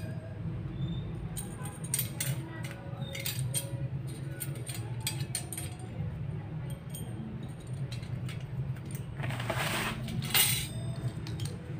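Steel MTB cassette sprockets and small loose cogs clinking and clicking as they are handled and set down. About nine to ten and a half seconds in, a plastic wrapping rustles.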